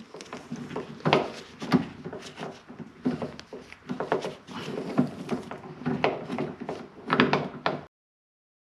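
Irregular clicks, knocks and rubbing of a plastic car door handle and its linkage rod being worked into place inside the door, cutting off abruptly near the end.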